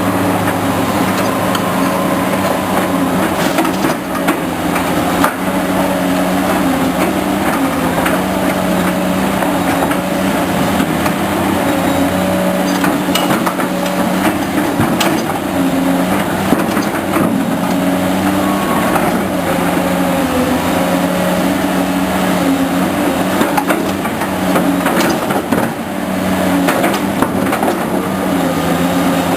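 Diesel engines of heavy construction equipment running steadily, their pitch rising and falling a little as they work under load, with scattered clanks and knocks over the top.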